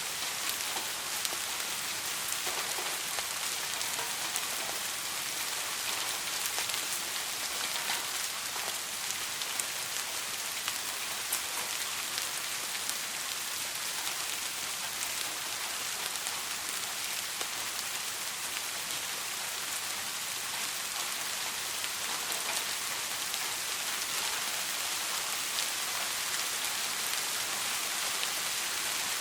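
Steady rain falling, a constant hiss with many small drop impacts scattered through it.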